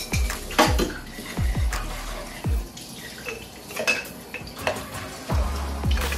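Dishes and cutlery clinking and knocking in a kitchen, over background music with deep bass notes that drop in pitch.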